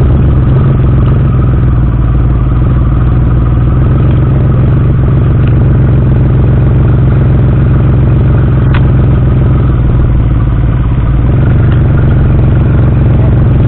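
Motorcycle engine idling steadily at close range, a loud low-pitched running sound.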